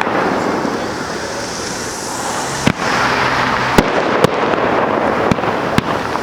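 Aerial fireworks display going off: a continuous crackle and hiss of burning effects, broken by about five sharp bangs of bursting shells in the second half.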